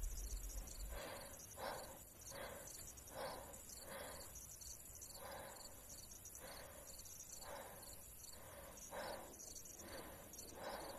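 Faint night ambience of crickets chirping, a steady high pulsing trill. A low rumble dies away in the first second, and a soft rustle repeats about every three-quarters of a second.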